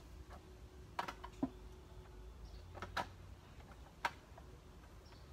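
A few light, irregular knocks and clicks of kitchen items being picked up and set down on a table.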